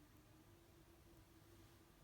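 Near silence: faint hiss and a low steady hum between voice-chat transmissions.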